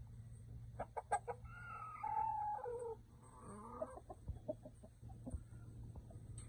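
Chickens: a few short clucks, then a rooster crowing once for about a second and a half, falling in pitch in steps, followed by softer clucks and calls.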